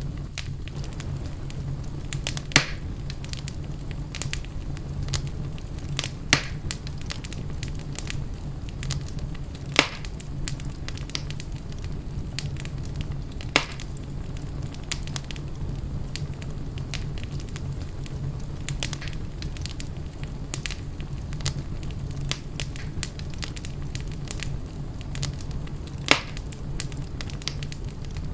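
Wood fire burning in a fireplace, crackling continuously over a steady low rumble. About five louder pops stand out, at roughly 2.5, 6, 10, 13.5 and 26 seconds in.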